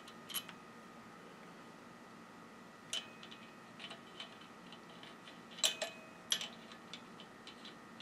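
Scattered faint metallic clicks as a spring washer and arbor nut are handled and threaded by hand onto a bench grinder's arbor, the two sharpest close together a little past halfway.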